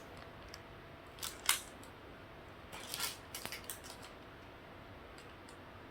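Plastic snack packaging crinkling as it is handled, a few short crackles about a second and a half in and again around three seconds in.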